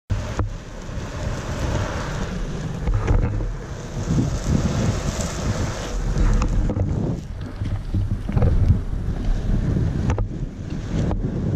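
Loaded Icarus longboard's wheels rolling over rough asphalt, a steady low rumble with a few brief knocks, and wind buffeting the action camera's microphone.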